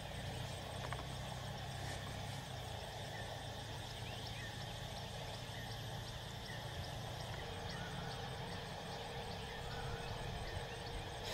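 Outdoor background on a golf course: a steady low hum with faint, short chirps scattered through it and a light, regular ticking.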